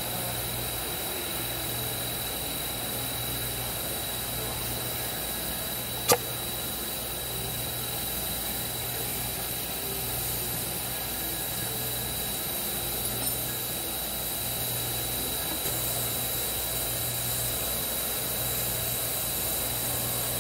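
Steady hum of running shop machinery with a constant high tone, and a low hum that cuts in and out every second or so. One sharp click about six seconds in.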